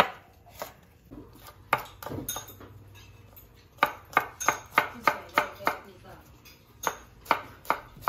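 Chef's knife chopping red shallots on a wooden cutting board: a few spaced chops, then a quick run of about eight chops at roughly four a second around the middle, then three more near the end.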